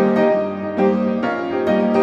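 Background piano music, with a new note or chord struck about every half second.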